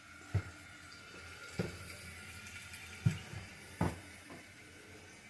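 Toilet tank refilling through its fill valve: a faint, steady hiss of running water, broken by several dull knocks.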